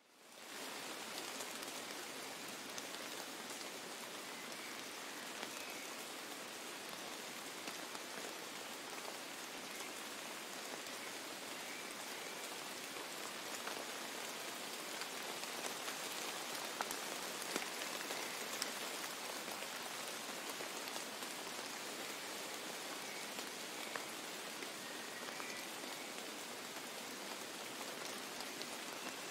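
Steady patter of rain falling on wet snow and brush, an even hiss dotted with small ticks of individual drops.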